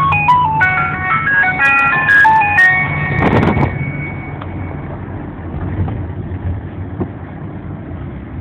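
A simple electronic tune of quick single-note beeps played through a car-mounted horn loudspeaker, like an ice cream van chime, ending on a long held note about three to four seconds in. After it only the car's low engine and road hum remains, with a brief rush of noise about three seconds in.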